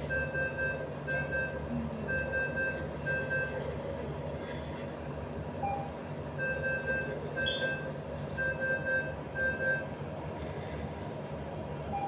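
Operating-room equipment beeping: short electronic beeps repeating about every half-second in runs, with a pause of about three seconds in the middle. A steady machine hum runs underneath.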